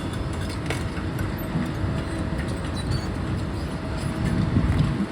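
Heavy demolition machinery running on site: a steady low engine rumble with a few light knocks.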